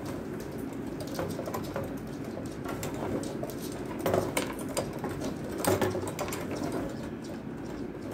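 Rods of a 1962 Munro H-29 table hockey game being pushed and turned so the player figures run around their slots: a steady rattling scrape with many small clicks, louder about four and six seconds in.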